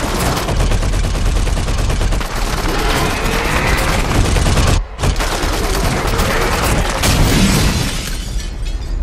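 Long bursts of rapid machine-gun fire from a helicopter-mounted gun over a heavy low rumble, broken off briefly about five seconds in and thinning out near the end.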